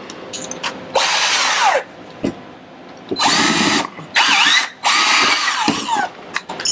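Power drill run in four short bursts, its motor pitch rising and falling with the trigger: the first burst about a second in, then three more close together from about three to six seconds in.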